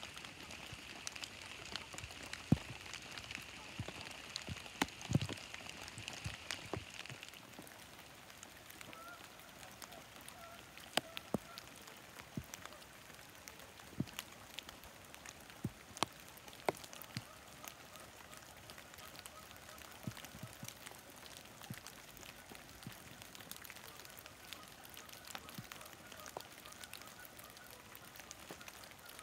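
Rain dripping on leaves in a wet wood, with a steady wash of running water and scattered sharp drips. From about nine seconds in, Canada geese honk faintly and repeatedly.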